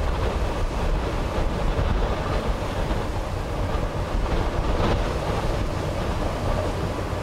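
Strong wind buffeting the microphone: a steady rushing noise with a deep rumble.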